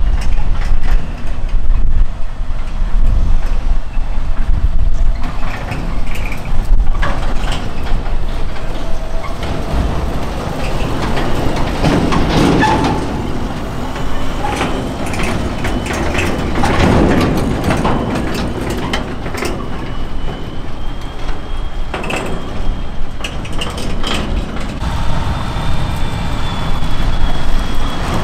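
Fendt Vario tractor's diesel engine running as it tows a tipping trailer over a rough field, with the trailer clattering and rattling over the bumps. A steady high whine joins in during the second half.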